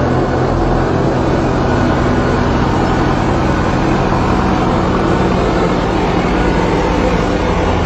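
A heavy vehicle's engine running steadily, with a low drone and no break.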